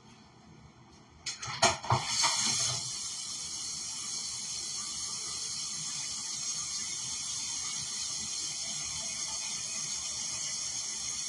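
A few clunks about a second and a half in, then a kitchen tap running steadily as a frying pan is rinsed in the sink.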